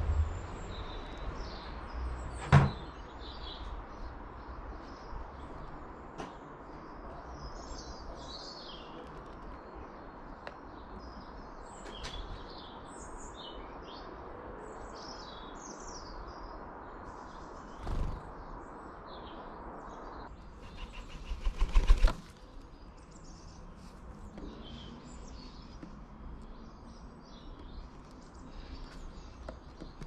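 Small garden birds chirping and singing in short phrases over a steady low background rumble. There are a few sharp knocks on the bird table, one about two and a half seconds in, and a rapid flurry of clattering knocks about two-thirds of the way through, the loudest thing heard.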